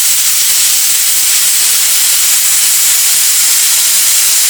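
Cooking pot on a wood fire hissing loudly and steadily.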